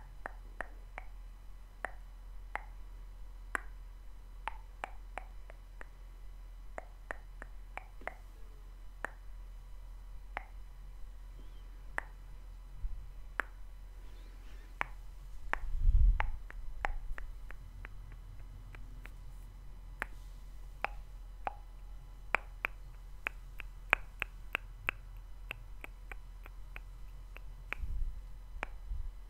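Close-miked mouth sounds: a long, irregular run of short wet clicks and lip smacks, several a second. A brief low rumble rises under them a little past halfway.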